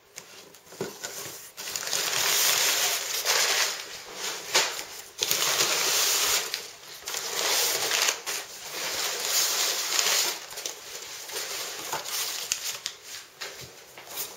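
Packaging being handled and pulled open while a boxed speaker is unpacked: plastic wrapping and packing material rustling and crinkling in irregular stretches, with a few sharp knocks.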